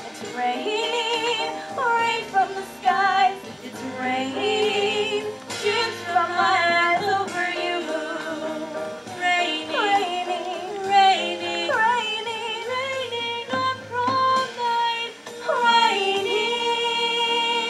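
A young woman's solo voice singing a wordless or unclear melodic line with vibrato over accompaniment. It ends on a long held note with sustained chords about sixteen seconds in.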